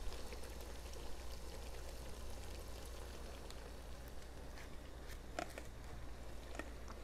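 Faint, steady sizzling of beef strips and vegetables cooking in a pot, with a few soft clicks over a low steady hum.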